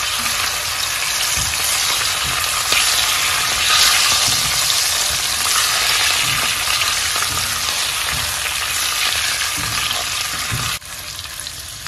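Boiled eggs frying in hot coconut oil with curry powder: a steady sizzle, with a silicone spatula stirring and turning the eggs in the pot and a few soft knocks. The sizzle drops suddenly quieter near the end.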